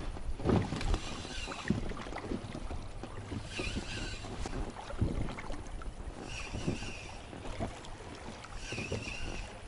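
Water lapping with small knocks and splashes over a low wind rumble on the microphone, broken three times by short higher-pitched whirring bursts a couple of seconds apart.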